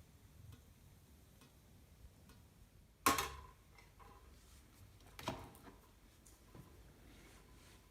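Faint ticking and clicking with two sharp clinks, about three and five seconds in, the first the loudest and ringing briefly: hard parts being handled around a lever espresso machine.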